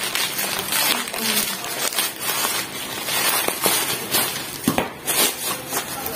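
Packaging rustling and crinkling as a small item is unwrapped and handled by hand, with scattered clicks and taps.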